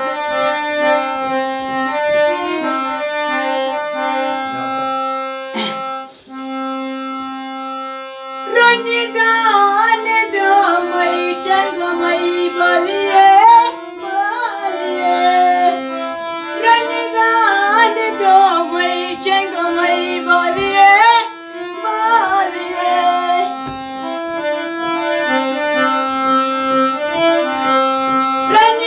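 Harmonium playing held chords and a melody; about eight seconds in, a high voice joins, singing an ornamented, wavering tune over it.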